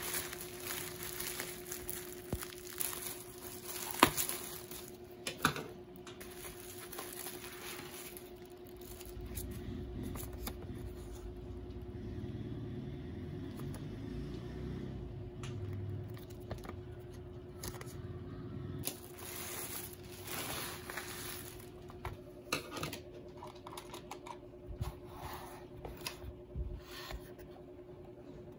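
Bubble wrap crinkling and rustling as it is pulled apart by hand, with a few sharp clicks. A low rumbling stretch of handling noise follows in the middle, then more crinkling and light taps and clicks as the contents are handled. A faint steady hum runs underneath.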